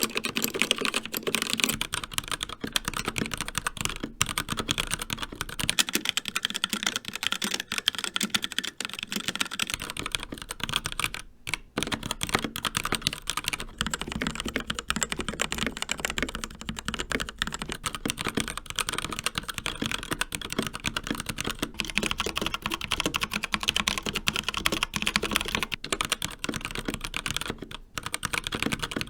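Fast, continuous typing on a series of mechanical keyboards in turn, each for about eight seconds: a CZC Dwarf with Kailh Red linear switches, a HyperX Alloy Origins with HyperX Red linear switches, a CZC Reaper with TTC Red linear switches, and near the end an Endorfy Thock TKL with Kailh Brown tactile switches. Dense, rapid keystroke clatter with a brief pause a little before the middle.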